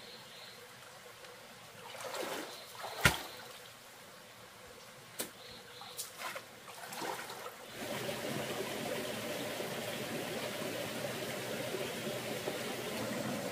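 Running water trickling, with a few short splashes and one sharp knock about three seconds in; about eight seconds in, a steadier, louder rush of water takes over.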